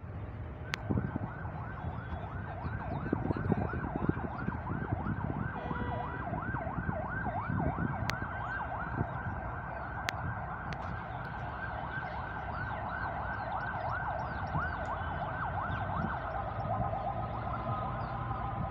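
Electronic yelp siren wailing up and down about three times a second. Near the end it gives way to a steady horn sounding several notes at once, over a constant low rumble.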